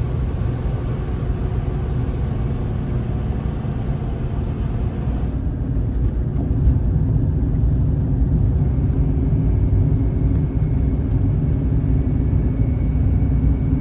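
Steady engine and road rumble heard inside the cabin of a 2019 Ram ProMaster van driving along at an even speed.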